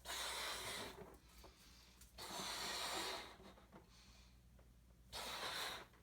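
A balloon being blown up by mouth: three long breaths of air blown into it, a couple of seconds apart, with quiet inhales between.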